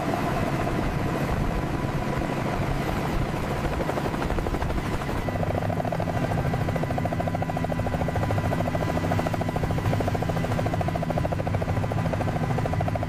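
Helicopter running with a steady whine and rotor noise. From about five seconds in, a fast, even rotor chop comes through clearly.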